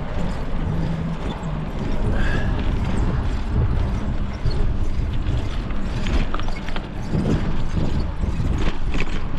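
Trek bicycle being ridden, its mechanism clicking and rattling over a steady rumble of wind and road noise on the microphone.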